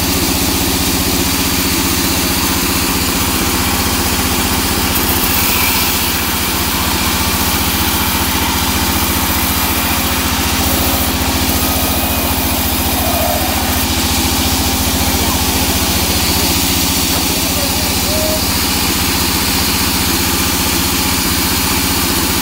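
Vertical band saw at a sawmill running steadily with no load, its blade spinning free without cutting.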